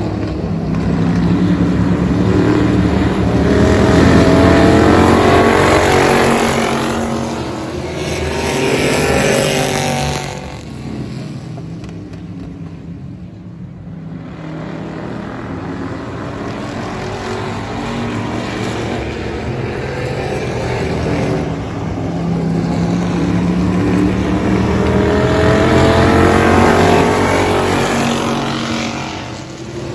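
Race car engines running around the oval, swelling loud as the cars pass, twice: a few seconds in and again near the end, with a quieter stretch in the middle as they go round the far side.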